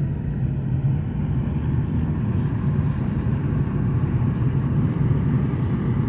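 Car cabin noise while driving: a steady low rumble of engine and tyres on the road, heard from inside the car.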